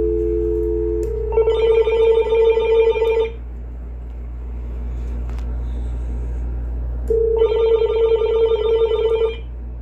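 A steady telephone dial tone for about a second. Then the telephone rings twice, each ring a warbling electronic tone of about two seconds, the two rings about four seconds apart, before the Uniden EXAI7980 cordless phone's answering machine picks up.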